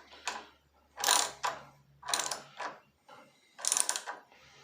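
Socket ratchet clicking in four short strokes, about one a second, tightening the nuts that hold the carburetor onto the tiller engine.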